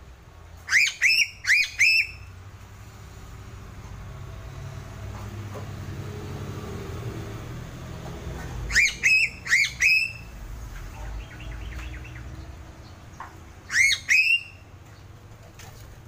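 Sulawesi crow (gagak sule) calling in short, loud, rising notes in quick groups: four about a second in, four more around nine seconds, and two near the end. A low steady rumble sits underneath.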